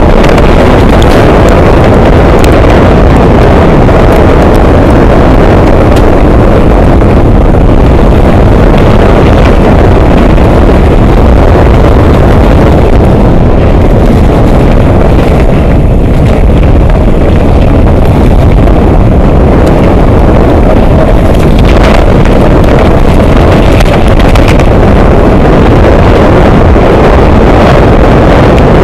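Wind rushing over the camera microphone as a mountain bike rides fast down a dirt singletrack, a steady loud low rumble with the odd knock and rattle from the bike over the bumps.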